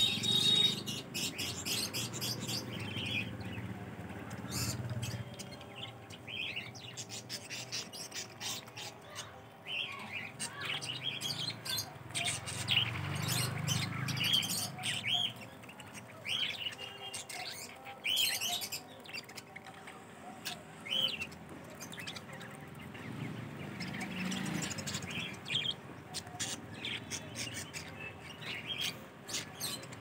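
A flock of caged budgerigars chirping and chattering continuously, a dense stream of short warbling chirps and clicks from many birds at once.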